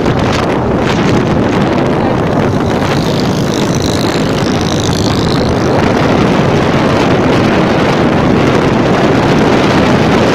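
Strong wind buffeting the microphone on a moving 70 cc motorcycle, over the steady running of its small engine.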